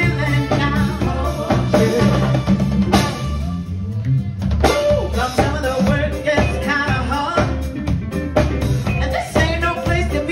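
Live funk band playing: drum kit, bass guitar, horn section and keyboards, with a woman singing. About three seconds in the bass drops out for a brief break before the full band comes back in.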